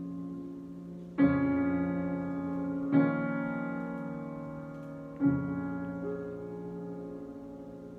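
Slow, unaccompanied piano improvisation. Sustained chords are struck about one, three and five seconds in, and each is left to ring and fade, with another note entering near six seconds.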